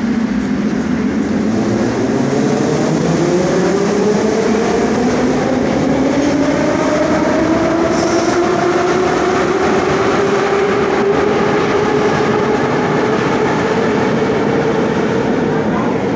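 Metro train pulling out of the station. The traction motors' whine rises steadily in pitch for about twelve seconds, then levels off, over a steady rumble.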